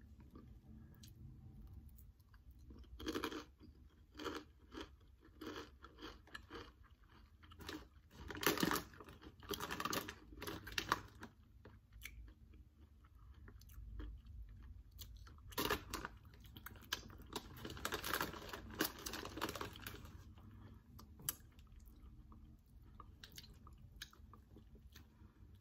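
A person chewing and crunching Takis Zombie rolled corn tortilla chips, in crisp crackling bites. The crunches come in bursts: a strong one about three seconds in, then two longer runs of dense crunching in the middle.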